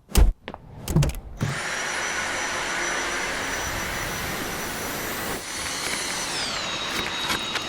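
A few clicks, then a Dyson cordless stick vacuum cleaner running with a steady rush of air and a high motor whine. Near the end the whine drops to a lower pitch, then the vacuum stops.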